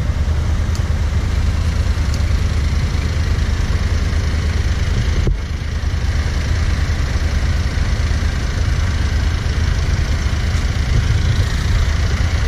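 Motorcycle under way: a steady rush and low rumble of wind on the microphone with the engine running beneath, dipping briefly about five seconds in.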